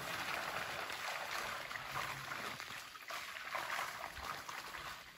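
Pond water splashing and trickling as a pole is worked in a shallow fishpond to bring up fish.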